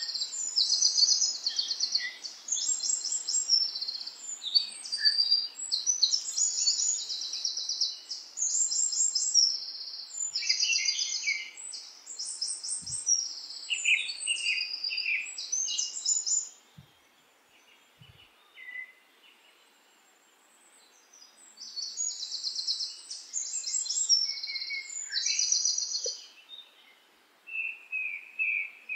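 Small songbirds singing: a dense run of short, high, rapidly trilled phrases, breaking off for a few seconds about two-thirds of the way through and then resuming, with a few lower calls near the end.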